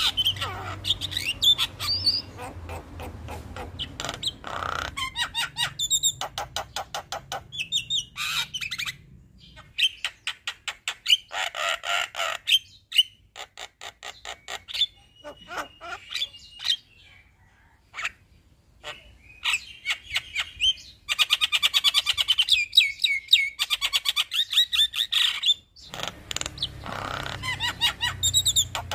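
Male Javan myna singing a long rolling song: fast runs of rattling clicks and trills mixed with whistled and squawking notes. There is a brief pause just past the middle.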